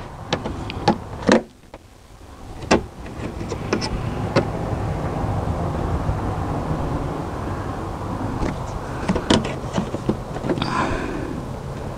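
Clicks and knocks of plastic interior trim being handled and worked loose by hand, over a steady low rushing background.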